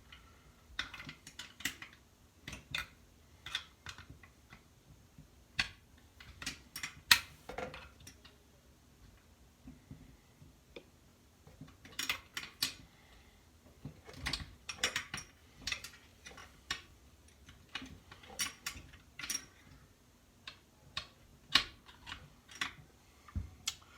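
Irregular metallic clicks and clinks of a wrench on the bolts of a McCulloch Super Pro 81 chainsaw being taken apart, coming in scattered clusters.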